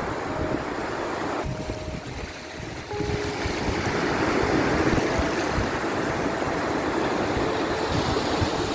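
Ocean surf: waves rushing and washing in, the rush dipping briefly and then swelling louder about three seconds in and holding.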